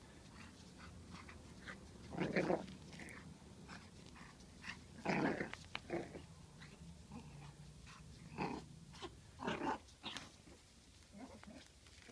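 Six-week-old pug puppy growling in short bursts, about six times, while biting and tugging at a plush toy.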